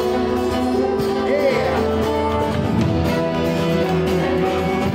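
Live folk band music in the gap between sung lines: a guitar-led instrumental passage over a steady bass.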